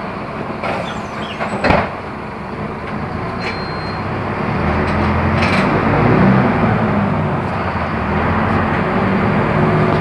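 Mercedes-Benz OF-1418 bus's diesel engine running under a Neobus Spectrum body, with a sharp knock about two seconds in. The engine grows louder from about halfway through, its note coming up clearly.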